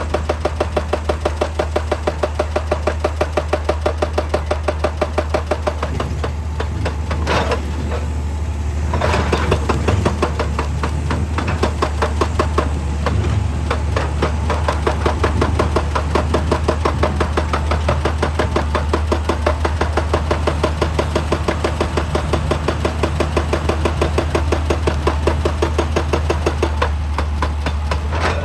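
Excavator-mounted hydraulic breaker hammering rock in rapid, even blows, about ten a second, over the steady drone of the excavator's diesel engine. The hammering falters briefly about seven seconds in, then picks up again.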